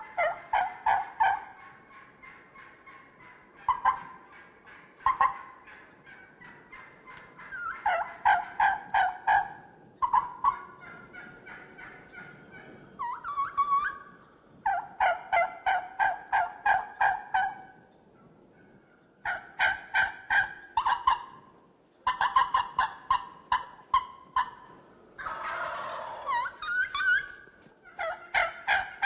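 Wild turkey gobbling again and again, each gobble a rapid rattling call lasting a second or two, with short pauses between.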